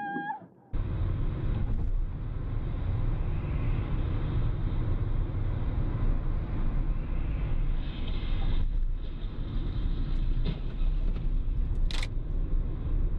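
A car driving, with a steady low rumble of engine and road noise. A few brief knocks come near the end, and one short sharper sound just before it.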